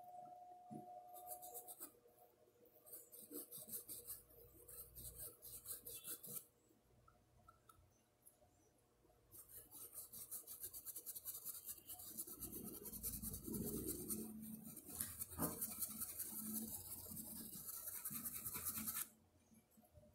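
Paintbrush bristles rubbing quickly back and forth over a porcelain cup's surface, a fast scratchy scrubbing that comes in three stretches, the last and longest lasting about ten seconds and stopping suddenly near the end.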